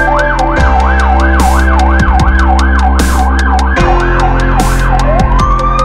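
A siren rising in a wail, then switching to a fast up-and-down yelp about two and a half times a second, then rising again near the end. It plays over loud electronic music with a heavy, regular beat.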